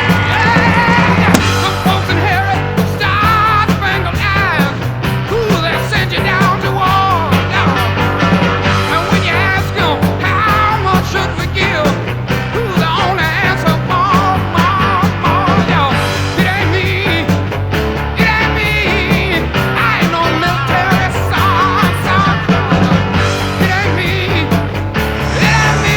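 Rock music soundtrack, loud and continuous.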